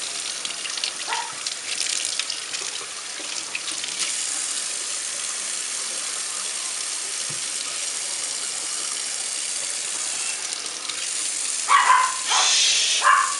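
Kitchen faucet running steadily, its stream splashing over a wet puppy held under it and into the sink. Near the end, a few short, louder sounds break in over the water.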